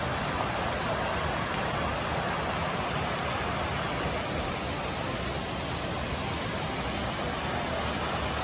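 Fountain water spraying and splashing, a steady rushing hiss with no breaks.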